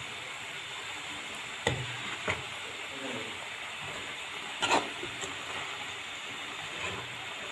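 Shredded cabbage and peas sizzling in a metal pan while a steel spoon stirs them, knocking against the pan three times.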